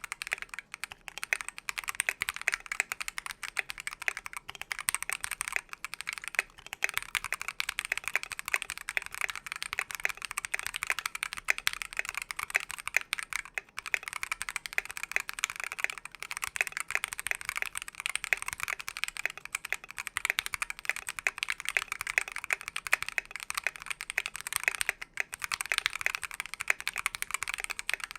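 Continuous fast typing on a KBDfans KBD67v2 MkII keyboard with a brass plate, lubed and filmed NovelKeys Silk Yellow linear switches and AKKO World Tour keycaps, with brief pauses about halfway through and near the end.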